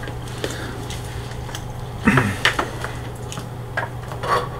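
Light clicks and small clatters of a circuit board and cables being handled on a workbench, a few scattered knocks over a steady low hum.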